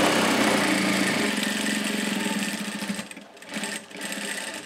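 Industrial straight-stitch sewing machine running steadily, stitching a staystitch across layered fabric, then stopping about three seconds in, followed by a few brief quieter sounds.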